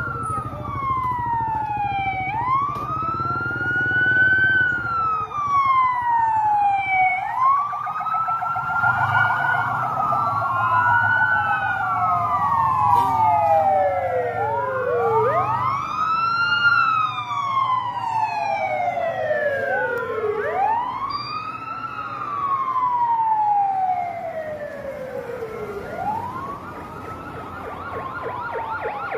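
Several traffic police sirens wailing at once, their slow rising and falling sweeps overlapping out of step with one another. A low engine rumble runs under them through the middle, and near the end one siren switches to a fast, rapidly repeating yelp.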